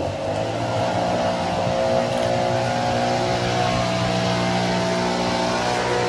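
A large engine comes in suddenly and runs steadily with a deep, even hum that does not change in pitch.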